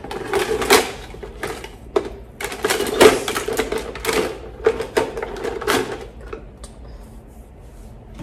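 Plastic toy dishes and utensils clattering and clicking as they are pushed into a plastic storage bin, a quick run of knocks that thins out near the end.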